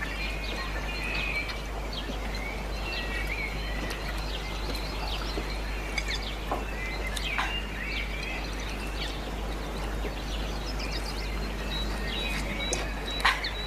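Birds chirping and twittering in short, high calls, over a steady low hum and hiss. One sharp click comes near the end.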